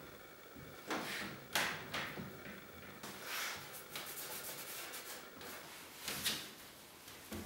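Quiet workshop handling sounds on a clamped white oak cabinet: a steel pipe clamp being tightened, then several short rubbing strokes of a rag wiping the oak, with a few sharper scuffs.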